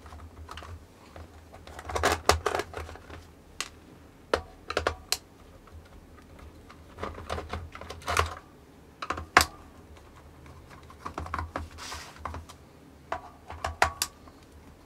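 Irregular clicks and taps in small clusters as a screwdriver turns out the tamper-proof screws of a plastic power strip's case and the case and screws are handled on the mat.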